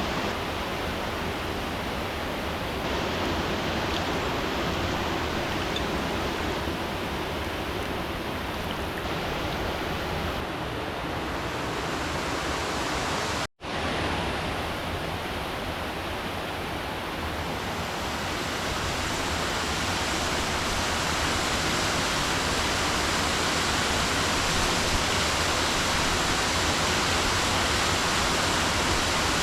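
Steady rush of river water, with a brief cut-out about halfway through.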